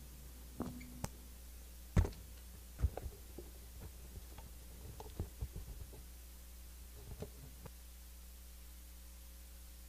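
Steady low electrical hum of a hall's sound system, with scattered knocks and thumps, the loudest about two seconds in. A faint steady higher tone comes in about eight seconds in.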